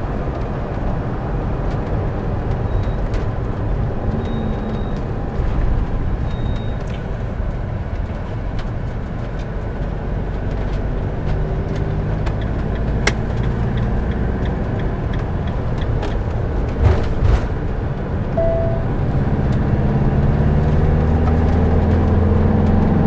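Motorhome on the move, heard from inside the cab: a steady rumble of engine and tyres on the road, growing a little louder over the last few seconds.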